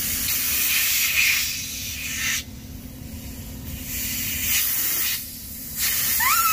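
A loud rushing hiss of air that cuts out abruptly twice, once for about a second and once for about half a second. A short rising squeak comes near the end.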